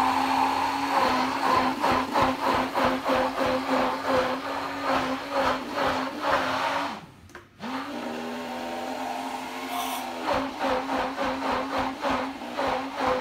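Hand-held stick blender running in a jug of thick vegan mayonnaise (soya milk emulsified with sunflower oil), its motor holding a steady pitch while the sound pulses about twice a second. It stops about seven seconds in and starts again under a second later, rising back up to speed.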